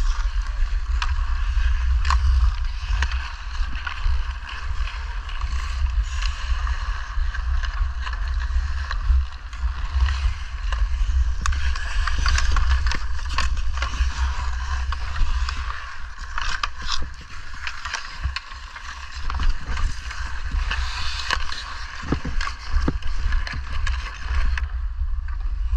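Hockey skates carving and scraping on outdoor rink ice in repeated swishing strides, with sharp clacks of sticks and puck throughout, over a steady low rumble on the helmet camera's microphone.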